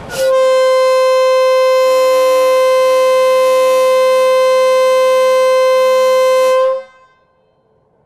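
Diesel locomotive air horn sounding one long, steady blast of about six and a half seconds on a single chord-free tone, cutting off sharply. This is the departure signal as the passenger train leaves the station.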